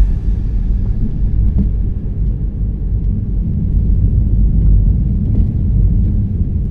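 Steady low rumble of a car driving on a snowy road, heard from inside the cabin: engine and tyre noise.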